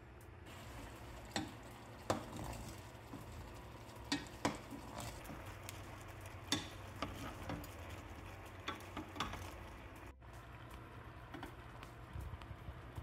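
Wooden spoon stirring whole button mushrooms in a stainless steel pot, with a dozen or so sharp knocks and scrapes of the spoon against the mushrooms and pot. A steady low hiss from the heating oil and vinegar starts about half a second in.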